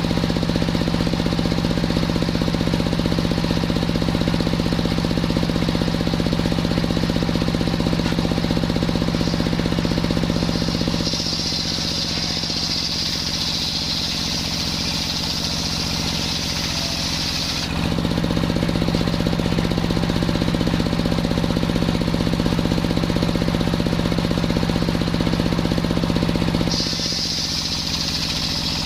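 Engine-driven circular sawmill (serkel) running steadily with a knocking engine note. Twice, from about eleven seconds in for some seven seconds and again near the end, a high hiss joins and the low engine note eases as the blade cuts through coconut wood.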